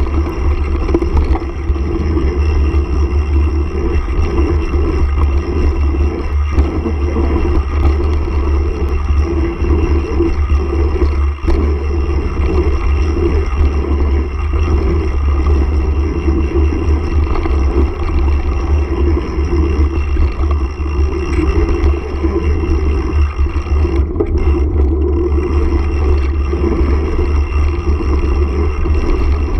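Mountain bike rolling fast down a gravel trail: a steady low wind rumble on the handlebar camera's microphone over tyre noise on gravel, with a few short knocks from the bike over bumps.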